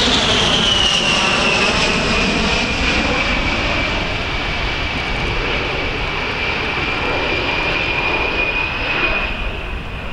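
An A-10 Thunderbolt II's twin General Electric TF34 turbofans whining as the jet passes overhead and pulls away. The whine drops in pitch over the first few seconds and then holds steady over a broad rumble, growing slowly quieter.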